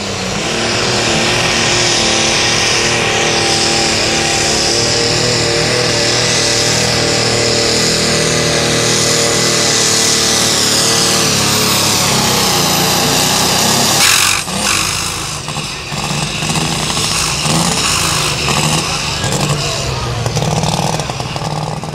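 Light limited super stock diesel pulling tractor (a John Deere) running flat out under load as it drags the weight sled, loud and steady with a high whine over it. About fourteen seconds in the engine note drops suddenly as the pull ends, then runs lower and unevenly.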